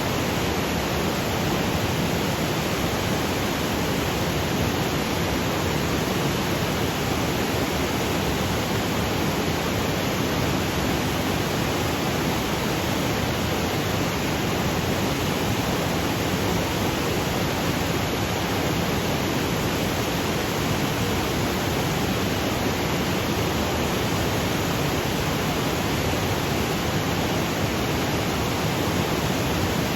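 Mountain waterfall cascading over granite boulders: a steady, unbroken rushing of water.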